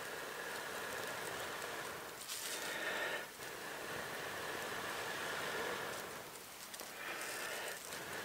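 Long, hissing blows of breath into a dry-grass tinder bundle around a glowing ember, with short pauses between breaths while the ember is coaxed towards flame.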